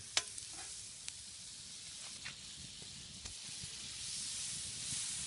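Butter sizzling as it melts and foams in a hot metal pan, with a few light clicks; the sizzle grows louder about four seconds in.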